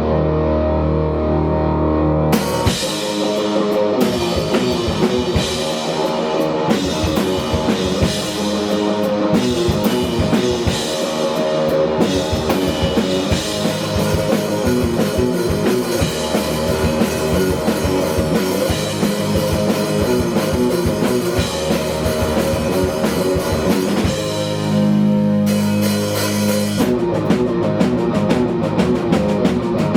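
Live indie rock band playing with drum kit and guitars: a held chord, then about two seconds in the full band comes in with driving drums; near the end the band holds a chord for a couple of seconds before the drums return.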